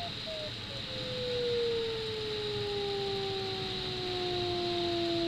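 Glider variometer audio: quick beeps falling in pitch give way about a second in to an unbroken tone that keeps sliding lower, the sign of the climb rate fading as the sailplane leaves lift and begins to sink. A steady rush of air around the cockpit canopy runs underneath.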